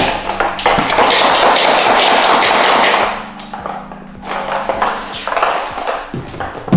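Hand pump sprayer hissing as slip solution is sprayed under lifted paint protection film to wet dry spots: one long spray of about two seconds, then shorter bursts.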